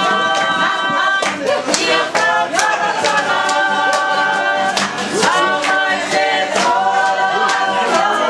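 Group singing with several voices holding long notes over a sharp, steady beat of about two strokes a second: music for dancing.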